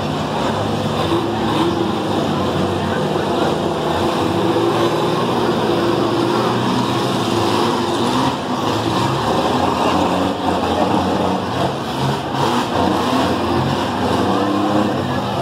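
Several minivan engines running and revving hard together, their pitch shifting up and down as the vans push and ram in the mud, with one engine revving up near the end.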